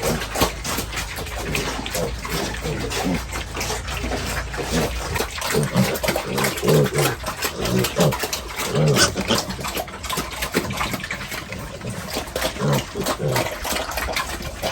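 Domestic pigs grunting, a run of short low grunts repeating irregularly.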